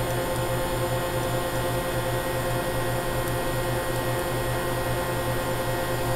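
Hitachi Seiki VS50 vertical machining center's spindle running at high speed, around 7,500 RPM, with no cutting: an even, quiet whir with a held tone and a steady hum.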